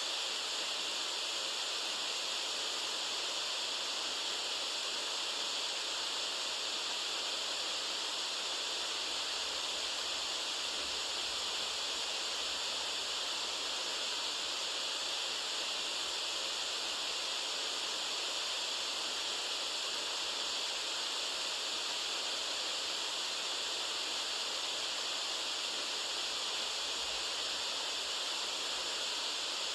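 Continuous white noise: a steady, even hiss, brightest in the treble and thin in the bass, with no change in level.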